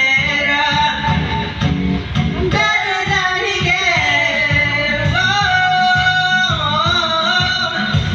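A voice singing long held and sliding notes over a pop backing track with a steady beat.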